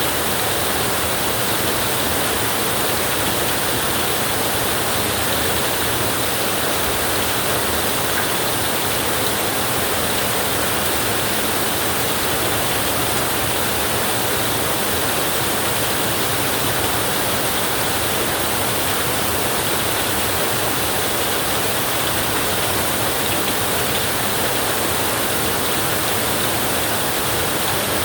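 Flowing river water, a steady rush that does not change.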